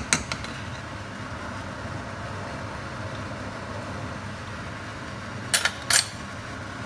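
Silicone spatula stirring custard in a steel pan, with a steady low hiss behind it, two sharp clicks at the start and two louder knocks against the pan near the end.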